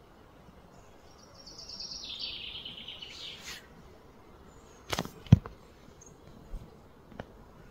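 A bird's rapid trill that steps down in pitch, lasting about two seconds. About five seconds in come two sharp knocks close together, the second the loudest sound, followed by a few faint clicks.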